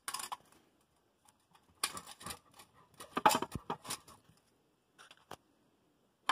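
Metal clicks and scraping as the motor of a stainless steel shallow well pump is worked loose from the pump housing by hand. They come in short clusters with pauses between, the loudest about three seconds in.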